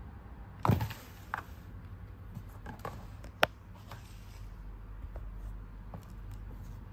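A cat's paws and a feathered wand toy tapping and scraping on a corrugated-cardboard scratcher: scattered light clicks, with a thump under a second in and one sharp click about halfway.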